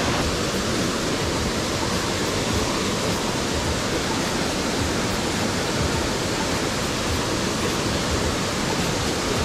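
Waterfall on a mountain stream, its water rushing in a loud, steady roar.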